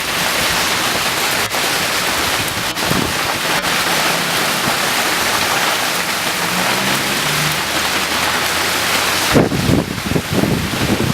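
Heavy rain and hail falling in a steady, dense hiss, with gusts of wind buffeting the microphone, strongest near the end.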